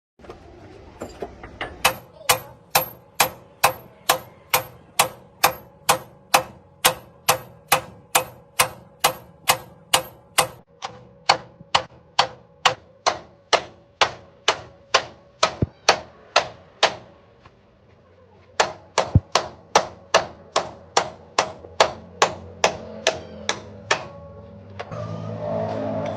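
Hammer striking metal in a steady run of ringing blows, a little over two a second, with a short pause about two-thirds of the way through before the blows resume.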